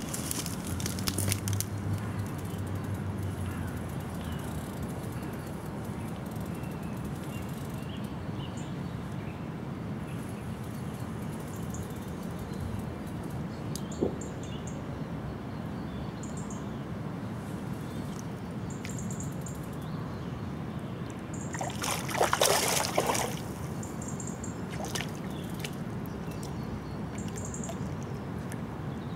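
River water running steadily, with a short louder splash about three quarters of the way through.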